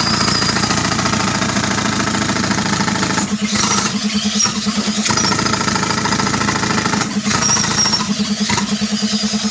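Pneumatic rock drill hammering into the rock floor of a well, fed by a tractor-driven air compressor whose engine hum runs steadily underneath. The hammering stops briefly twice.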